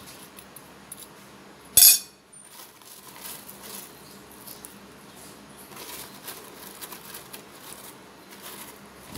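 A metal spoon set down on a glass plate with a single sharp, ringing clink about two seconds in, followed by faint light rustling and ticking as chopped spring onions are picked from a plastic tub.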